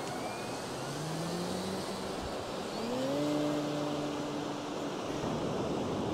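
Electric motor and propeller of an E-flite Cessna 150 RC model plane throttling up for takeoff: a whine that rises in pitch, holds steady, then fades near the end. Steady surf and wind hiss throughout.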